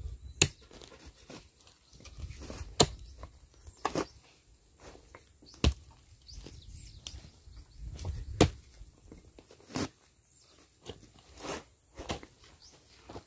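A digging tool striking and crunching into soil, about eight sharp strikes at irregular intervals of one to two seconds.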